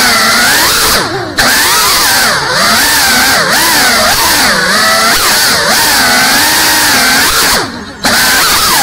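GEPRC Cinelog 35 FPV cinewhoop's brushless motors and ducted propellers whining, the pitch rising and falling constantly with throttle during fast indoor flying. The sound dips briefly twice, about a second in and again near the end.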